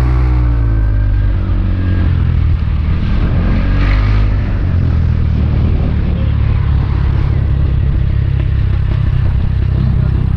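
Motor scooter engine running while riding, under a heavy low rumble. The engine note shifts in pitch in the first second or so.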